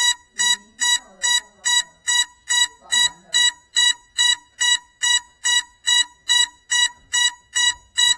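A crashed FPV quadcopter's lost-model alarm beeping, short identical electronic beeps at about two and a half a second, a signal that the downed drone is waiting to be found.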